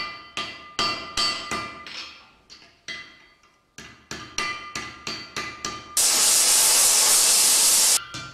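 Hand hammer striking red-hot low-carbon steel on an anvil in a steady rhythm of about three blows a second, each blow ringing. The blows fade out about three seconds in, pause briefly, then resume. Near the end comes a loud, steady hiss of about two seconds from the welding torch's flame.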